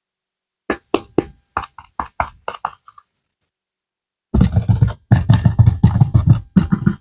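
Close-up ASMR handling of soft modelling clay: first a quick run of about nine sharp clicks and taps, then, after a short pause, a stretch of loud, dense crackling and squishing as the clay is pressed and worked.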